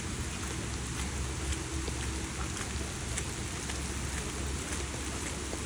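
Steady rain falling, with the faint patter of individual drops.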